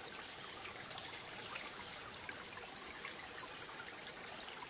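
Soft, steady sound of running water, a trickling stream used as a background ambience.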